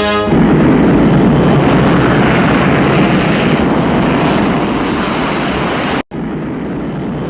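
A loud, steady rushing roar that fades slowly. It breaks off for an instant about six seconds in, then carries on a little quieter.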